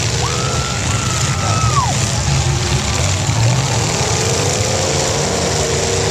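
Demolition derby cars' engines running loudly and unevenly, revving in rough bursts, with a single held high tone for about a second and a half near the start.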